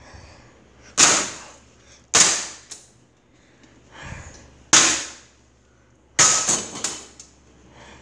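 Hammer blows on a cheap Holmes plastic box fan: four hard, sharp cracks at uneven intervals, each dying away briefly, with a few lighter knocks between them.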